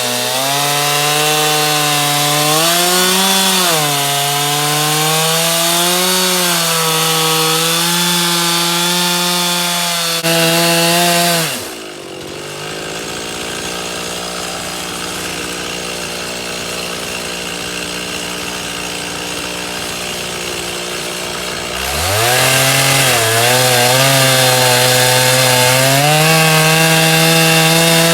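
Chainsaw on an Alaskan sawmill ripping a pine log lengthwise into boards, its engine running at high revs with the pitch wavering under load. About a third of the way in the throttle drops and the engine falls to a lower, quieter idle for about ten seconds, then revs back up and keeps cutting.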